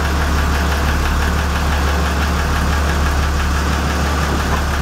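Boat engine idling steadily, a constant low hum.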